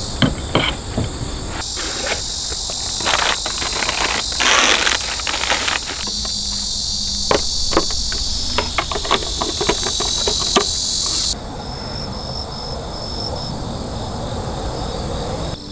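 Chorus of crickets and other insects, a dense high steady trill, over irregular clicks and knocks of things being handled, with a short rustling burst about five seconds in. About eleven seconds in, the trill gives way to a softer chorus with short high chirps repeated several times a second.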